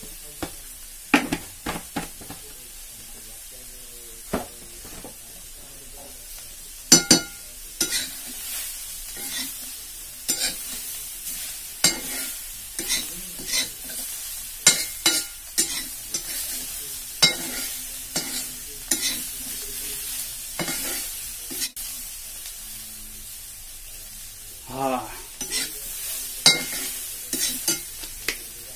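Prawns sizzling in a black pan, steady high hiss, while a metal spatula stirs them, scraping and clinking against the pan in irregular runs with a short lull about three quarters of the way through.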